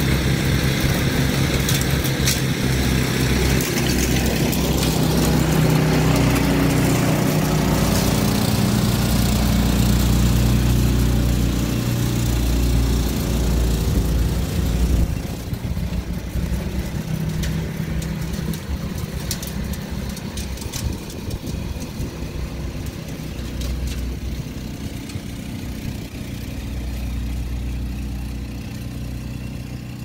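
Snow blower engine running steadily as it throws snow. It is loud for the first half, then drops to a quieter, duller hum about halfway through.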